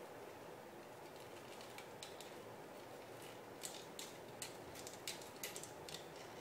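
Plastic parts and joints of a 1/60 Perfect Grade Gundam Mk-II model kit clicking as its leg is bent and posed by hand: a quick run of sharp light clicks in the second half, over a steady hiss.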